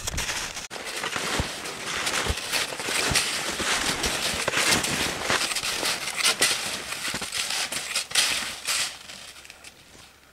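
Snowshoe footsteps crunching in snow, an irregular run of crunches that stops about a second before the end.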